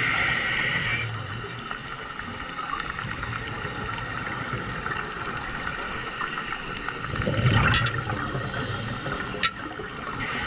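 Scuba diver breathing through a regulator underwater: a hissing inhale at the start, a louder burst of rumbling exhaled bubbles a little past the middle, and another hissing inhale near the end.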